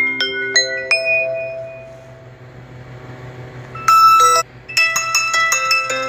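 Phone ringtones playing. One ringtone's quick run of struck, ringing notes stops about a second in and fades away. Near four seconds a new ringtone starts with a short chime, a brief break, and then a fast run of notes.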